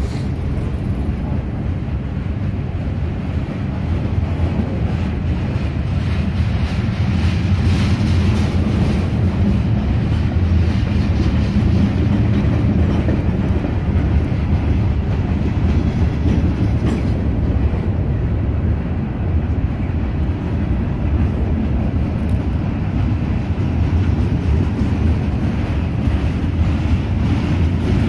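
Freight train cars of tank cars and covered hoppers rolling slowly past, a steady rumble of steel wheels on the rails. It grows a little louder about four seconds in.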